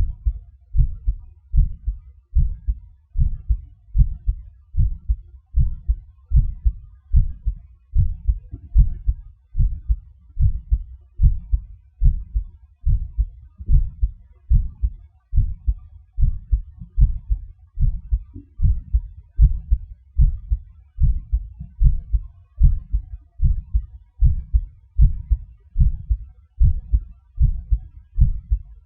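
Heart sounds: a steady, regular heartbeat, each beat a low thud, repeating evenly throughout.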